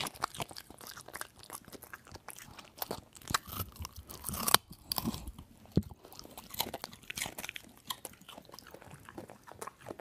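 A dog eating greedily, crunching and chewing its food in quick, irregular bites.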